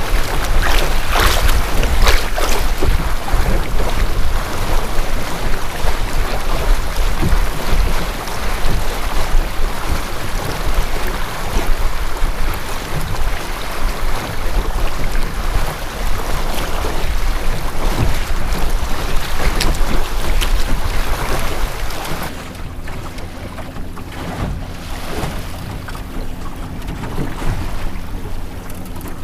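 Water rushing and splashing along the hull of a Melonseed skiff under sail, with heavy wind buffeting on the microphone. A little over two-thirds of the way through it drops to a quieter wash of water.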